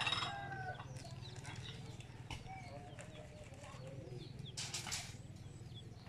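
A rooster crowing right at the start, followed by chickens clucking, with a short rasping noise about five seconds in.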